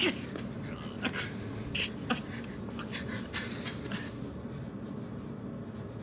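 A person's short, ragged gasping breaths, about six in the first four seconds, over a steady low hum.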